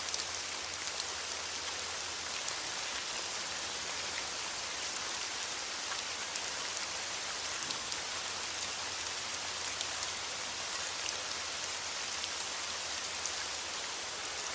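Steady rain hiss with faint scattered drop ticks.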